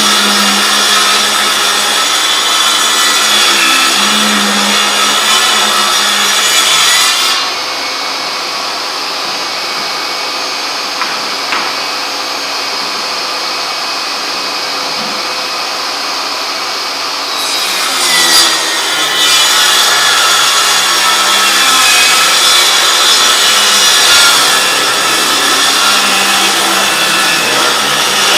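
Milwaukee M18 Fuel 8-1/4-inch cordless table saw cutting through wood, a loud, dense saw noise. About seven seconds in, the cutting sound drops to a quieter, duller run for about ten seconds, then the loud cutting resumes.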